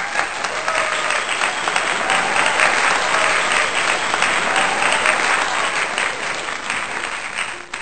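Audience applause: dense clapping with some voices in the crowd, dying away near the end.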